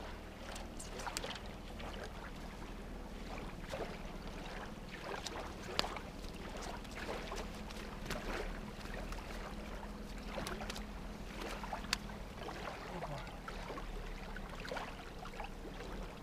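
A small fish splashing in the shallows as it is reeled to the bank and landed, followed by handling noises as it is unhooked. A low steady hum runs underneath, with two sharp clicks about six and twelve seconds in.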